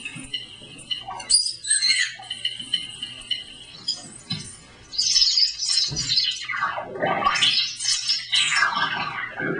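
Electronic music from the Container for Sound, a hand-built box instrument played by hand: sparse high chirps and squawks, turning denser and louder about five seconds in with sounds sweeping up and down in pitch.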